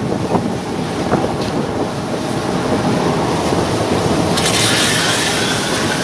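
Big waves surging against a ship's hull in a rough sea, with strong wind buffeting the microphone in a continuous low rumble. About four seconds in, a loud rushing hiss of breaking water sets in.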